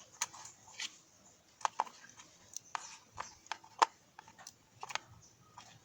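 Irregular small clicks and taps, about a dozen, from an egg cooker's parts being handled during a repair.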